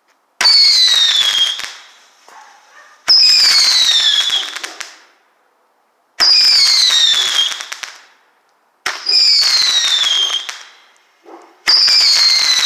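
Phantom Fireworks Army Roman candle firing five whistling shots, one about every three seconds. Each shot starts suddenly, then whistles downward in pitch and crackles away over a second or so.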